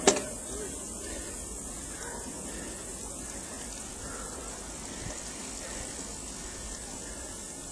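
Steady rushing of wind on the microphone and tyre noise from a road bicycle rolling on asphalt, with a sharp click at the very start from the rider shifting gears.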